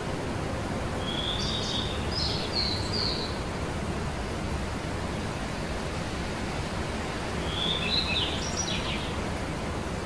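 A small songbird singing two short phrases of quick high chirps, one about a second in and another near the end, over a steady background hiss.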